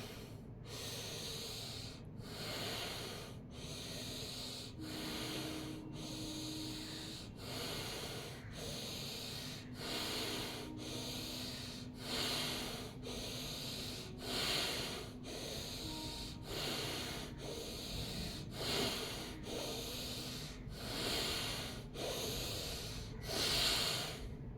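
Bhastrika pranayama (bellows breath): forceful, even breaths in and out through the nose with the mouth closed, in a steady rhythm of about one stroke a second.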